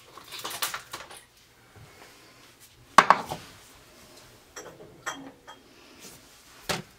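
Empty glass canning jars clinking and knocking against each other as they are gathered up: scattered clatters, with one sharp knock about three seconds in and a few small ringing clinks after it.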